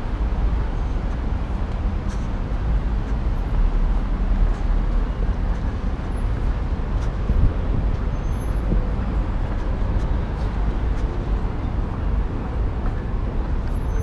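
Steady city road traffic: a continuous low rumble of engines and tyres from passing vehicles.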